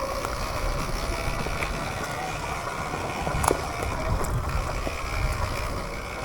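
Sur-Ron electric dirt bike riding along a dirt trail: a steady low rumble of wind on the microphone and tyres over the ground, with a sharp knock about three and a half seconds in.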